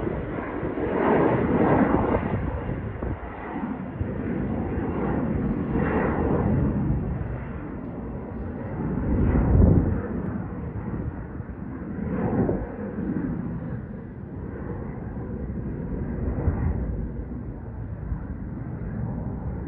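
Jet airliner's engines as it climbs away after takeoff: a dense, noisy rumble that swells and ebbs every few seconds and slowly fades as the plane recedes.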